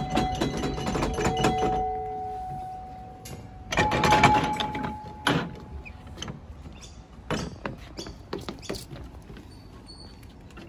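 Footsteps and knocks on the wooden deck and metal fittings of a playground structure; twice, a knock sets off a ringing metal tone that hangs on and fades over a couple of seconds, the second about four seconds in.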